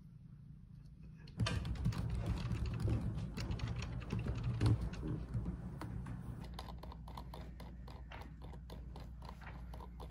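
Typing on a Samsung laptop's built-in keyboard: fast, dense key clicks that start about a second and a half in and grow lighter and sparser over the second half.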